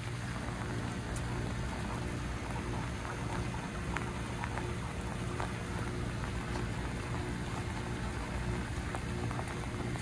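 Bryant Preferred Series heat pump outdoor unit running steadily through its defrost cycle, a low compressor hum with a few higher steady tones. Raindrops tap on the microphone over a steady patter of rain.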